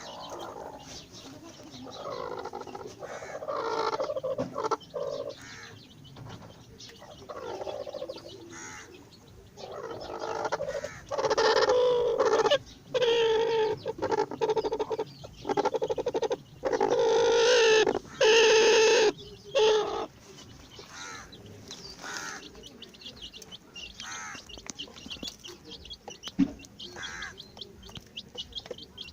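Chickens clucking and calling over and over, with a loud stretch of calls partway through, then quieter chirping.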